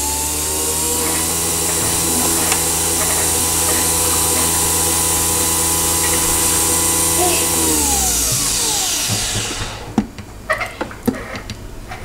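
Nespresso Vertuo machine spinning the capsule as it brews, a steady motor whine with a hiss of coffee running into the cup. About eight seconds in it winds down, falling in pitch as the brew cycle ends, followed by a few light clicks.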